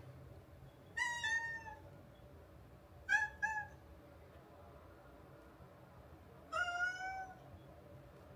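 Domestic cat meowing four times: a longer falling meow, then two short meows in quick succession, then a longer meow that rises in pitch.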